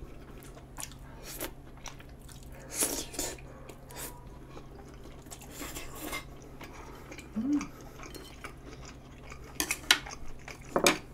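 Close-up eating sounds: a person slurping in and chewing cheese-covered tteokbokki (Korean spicy rice cakes), with scattered sharp clicks and clinks of chopsticks against the dishes, the loudest near the end.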